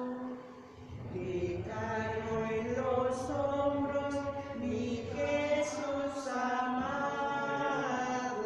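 Unaccompanied liturgical chant: singing of a held melody that glides between notes, with a short pause for breath just after the start.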